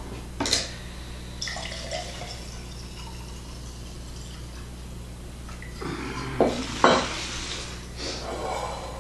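Liquid poured from a bottle into a drinking glass, with glass knocking against the counter, two sharp knocks a little past halfway, then the glassful poured into a large jar near the end.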